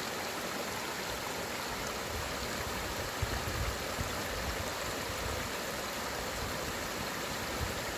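Stream water rushing steadily around a beaver dam, the small river running high after rain.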